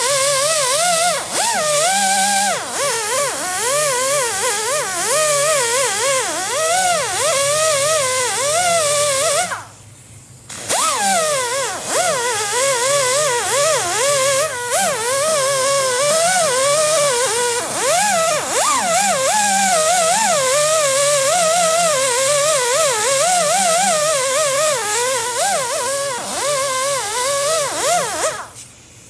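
Power cutting tool's motor running as it cuts rubber tread lugs off a lawnmower tire, its pitch wavering up and down constantly with the load. It stops briefly about ten seconds in, starts again, and cuts off near the end.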